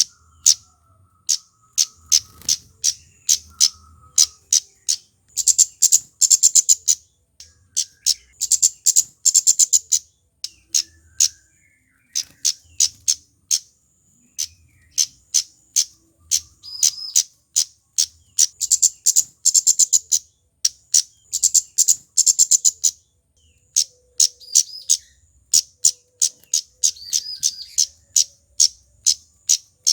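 Male flowerpecker (kemade / cabe-cabean) calling energetically: rapid runs of high, sharp 'cit' chips, repeated in bursts with short pauses between them.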